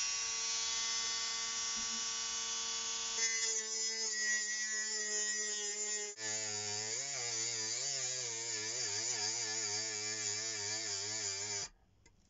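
Parkside cordless rotary tool with a cutting disc running with a steady high whine, then grinding into steel model railway track, its pitch wavering under the load. Near the end the motor stops abruptly: its thermal cutout has tripped from the heat of cutting steel.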